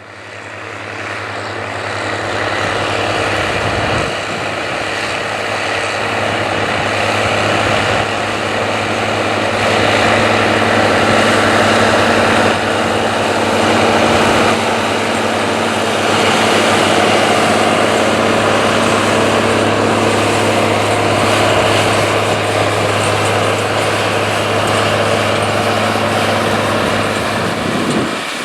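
Large farm diesel engine running steadily under load during corn harvest: a steady low hum with a broad rush of machine noise that grows louder over the first several seconds, then holds.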